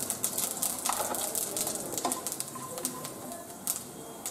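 Panch phoron (Bengali five-spice seeds) spluttering and crackling in hot oil in a kadai, many small irregular pops as the seeds fry.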